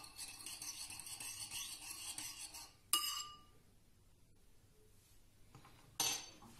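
Metal teaspoon stirring yeast and sugar into warm water in a ceramic bowl, scraping and clinking against the bowl for about three seconds and ending with a sharp ringing clink on the rim. A short rubbing sound near the end as the bowl is picked up and moved on the counter.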